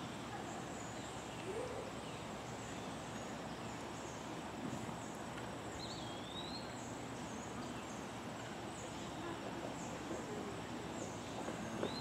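Outdoor ambience: a steady background hiss with scattered faint high chirps, and a clear whistled glide that rises and falls about six seconds in, with another near the end.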